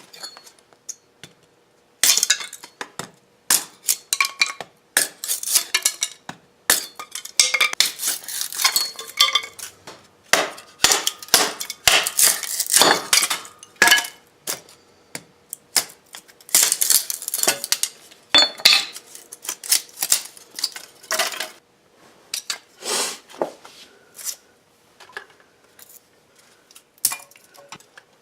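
Hard objects clattering, clinking and scraping as they are handled, in irregular bursts with some short metallic ringing, busiest in the first two-thirds and thinning out near the end.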